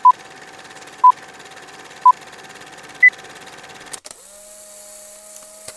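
Film-leader countdown beeps: three short beeps one second apart, then a fourth, higher beep, over a steady crackling hiss. About four seconds in the sound cuts to a steady hum with a high hiss.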